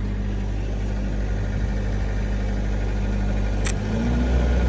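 Engine-driven welding machine running at idle with a steady drone; a sharp click comes near the end, and right after it the engine note steps up and grows louder as an arc is struck with a 5/32 7018 stick electrode and the machine takes the welding load.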